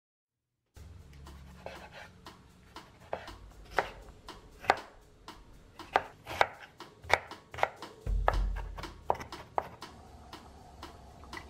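Chef's knife chopping a red bell pepper on a wooden cutting board, irregular sharp knocks of the blade striking the board at about two a second.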